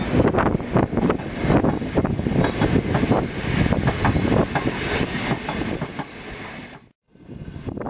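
Narrow-gauge passenger train carriages rolling past close by, the wheels clicking and clattering over the rail joints. The sound fades as the last carriage goes by and cuts out just before seven seconds.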